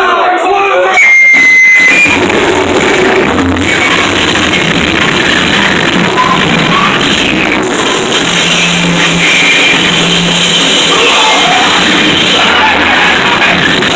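A live noise-music set played loud: a dense, harsh wall of sound across all pitches that starts suddenly about a second in, as the last crowd whoops die away, and carries on without a break.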